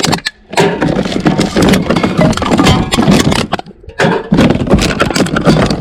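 Rapid clattering and knocking of hard objects, with brief lulls about half a second in and just before four seconds in.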